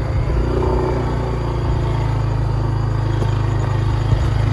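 Motorcycle engine running steadily at low speed, heard from on the bike, with a single brief knock about four seconds in.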